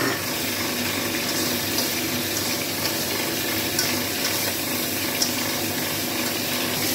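Potatoes and green chillies sizzling steadily in oil in a steel kadai as they are stir-fried dry before water goes in. A metal spatula scrapes the pan lightly a few times.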